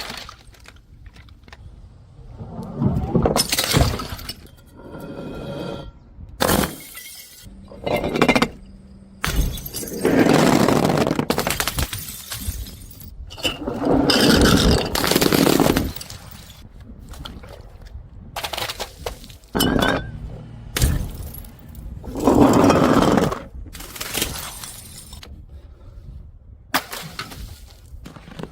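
Glass bottles smashing one after another, each a sudden crash running into shattering and the clink of shards, a dozen or so breaks with a few longer shattering runs.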